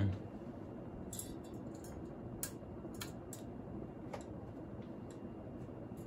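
AirCool ceiling fan running steadily, a low hum with air noise from the spinning blades. About five sharp, irregular clicks fall over the first four seconds.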